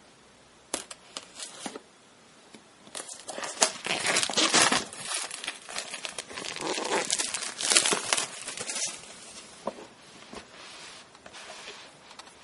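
Clear plastic shrink-wrap being slit, torn and peeled off a boxed tablet, crinkling. A few sharp crackles come about a second in, then a long stretch of loud crinkling, thinning to lighter rustles near the end.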